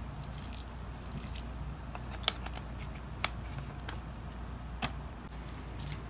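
Wet flour dough being squeezed and kneaded by gloved hands in a stainless steel bowl, with soft squishing and a few sharp clicks, the loudest about two seconds in.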